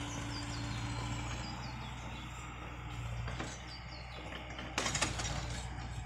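Heavy construction equipment's engine idling with a steady low hum, while small birds chirp repeatedly. A brief clatter comes near the end.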